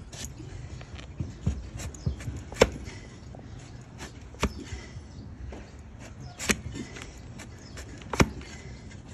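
A broad flat hoof-trimming blade cutting through hard donkey hoof horn, a sharp crack at each stroke, about seven strokes spaced irregularly a second or two apart.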